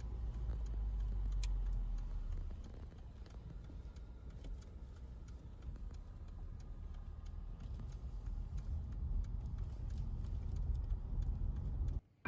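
Car driving: a steady low rumble of engine and road noise, with scattered small clicks and rattles. It cuts off abruptly just before the end.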